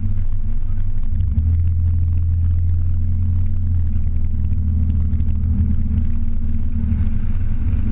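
The 2001 Pontiac Bonneville SSEi's supercharged 3.8-litre V6 running at low, steady revs as the car rolls slowly, a low drone that steps up slightly a little after a second in.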